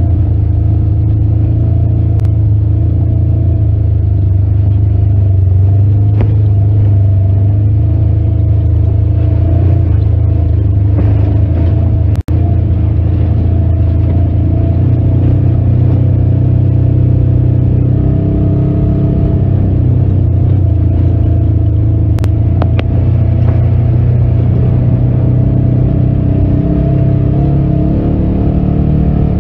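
Side-by-side off-road vehicle's engine running at steady trail speed, a loud, steady low drone heard from inside the cab. The sound drops out briefly about twelve seconds in.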